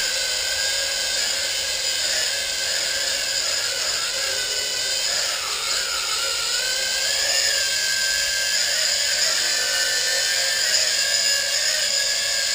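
Small toy quadcopter's four propeller motors whining at a high pitch. The pitch wavers up and down as the throttle changes while the drone lifts off and hovers.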